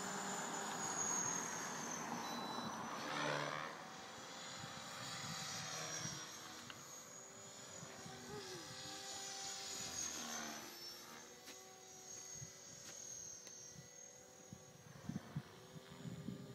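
Align T-Rex 500 electric RC helicopter in flight: a steady whine of motor and rotor, several held tones whose pitch drifts up and down as it manoeuvres, loudest in the first few seconds and then fainter.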